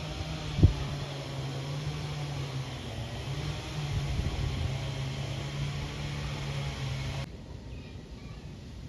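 Steady low mechanical hum with a single sharp knock about half a second in; the hum cuts off suddenly near the end.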